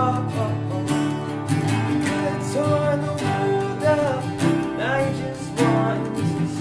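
Three acoustic guitars strummed together in a folk song, with a voice singing the melody in phrases over them.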